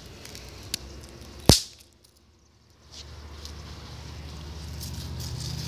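A single sharp, loud bang about a second and a half in, then a low rumble that slowly builds toward the end.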